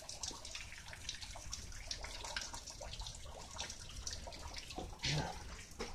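Rain falling outside, heard from indoors as a steady hiss of many small, irregular ticks, with one brief louder bump about five seconds in.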